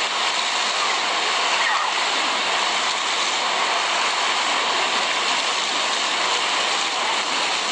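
Steady hiss and splatter of a plaza fountain's water jets shooting up from floor grates and falling back onto the wet paving.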